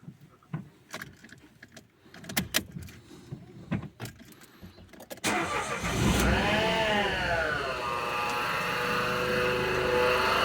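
A few sharp clicks and knocks, then about five seconds in the Dacia Sandero's engine starts, its revs rising and falling once before it settles into a steady idle.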